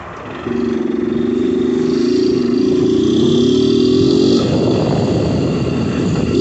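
A toad calling with a loud, long trill, steady in pitch, that lasts about four seconds and cuts off suddenly; a rougher noise follows it.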